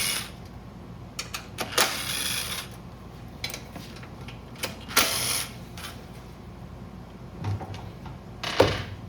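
Hand tools working on a small generator engine: a ratchet clicking in short spells and metal bolts and parts clinking as 10 mm bolts are taken out, with a sharp metal clack near the end.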